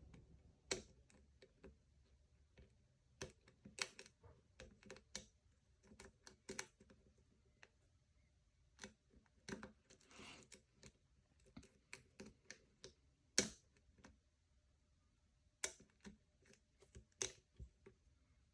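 Faint, irregular small clicks and ticks of a lock pick and tension tool working the pins inside a five-pin USPS PO box cam lock, with one sharper click about two-thirds of the way through.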